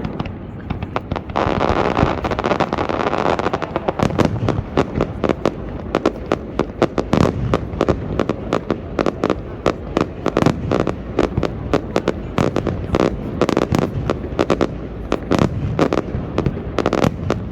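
Aerial fireworks display: a dense, continuous barrage of shell bursts and crackling reports, with a hissing stretch about two seconds in.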